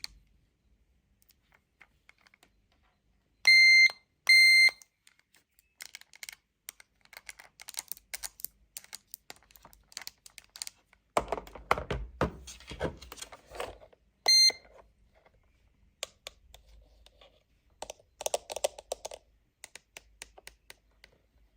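Toy cash register beeping: two short beeps about four seconds in and a shorter third one about two-thirds through, amid light clicks and taps of small plastic pieces being handled, with a busier stretch of clatter a little past halfway.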